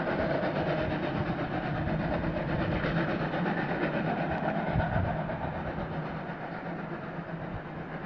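Steam-hauled train moving away along the track, its sound fading gradually over the second half.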